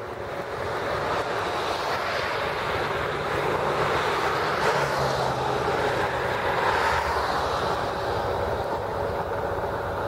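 Highway traffic going by: tyre and engine noise of passing vehicles swelling over a few seconds and easing off again.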